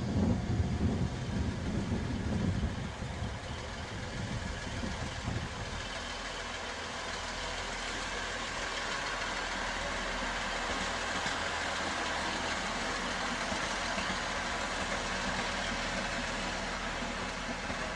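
Class 158 Sprinter diesel multiple unit arriving, its underfloor diesel engines running with a steady hum. A loud low rumble comes in the first few seconds.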